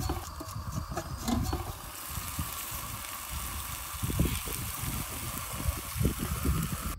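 A steaming pot of water on a wood fire, hissing and bubbling as soaked rice is poured into it from a bowl. A steady hiss sets in about two seconds in, with low rumbles coming and going.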